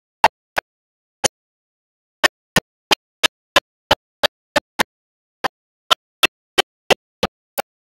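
A run of short, sharp clicks, irregular at first and then about three a second from roughly two seconds in, with dead silence between them.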